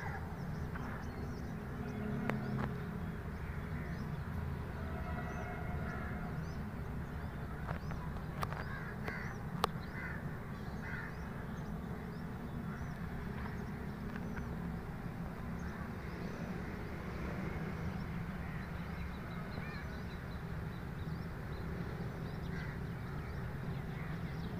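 Crows cawing among other scattered bird calls, over a steady low rumble of open-air background noise, with two sharp clicks a little before the middle.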